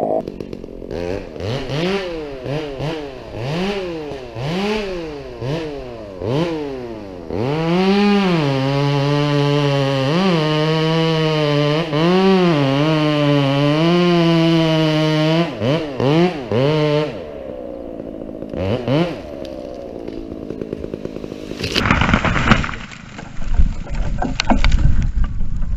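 Husqvarna 372 two-stroke chainsaw. For the first seven seconds its pitch rises and falls in quick swoops as the throttle is blipped. It is then held at high revs for about eight seconds while cutting into a tree, and drops back and dies away. Near the end there is a crash of snapping branches and heavy thuds as the felled tree hits the ground.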